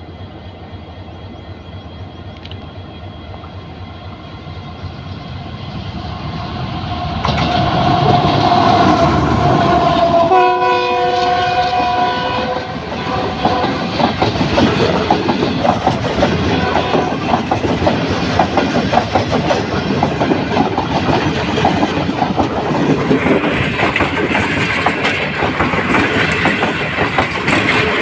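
Green Line express train approaching and passing through the station at speed: a rumble that grows louder over the first seven seconds, the horn sounded for about two seconds near ten seconds in, then a steady clatter of the coaches' wheels over the rail joints as the train runs by.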